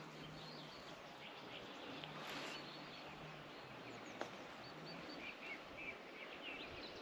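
Faint open-country ambience with small birds chirping now and then, the chirps short and high. A faint low hum comes and goes.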